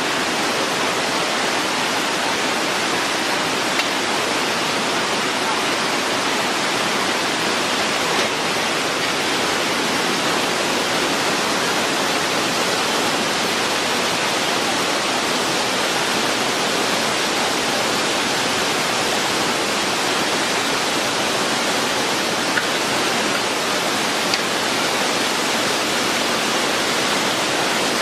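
Waterfall rushing: a steady, unbroken roar of falling water, with a few faint clicks.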